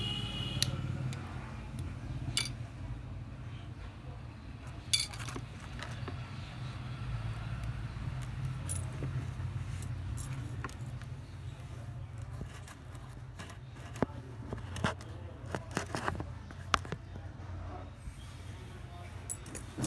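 Small tools clicking and tapping against a smartphone's glass back and frame as it is worked open, in scattered sharp ticks of varied loudness over a steady low hum.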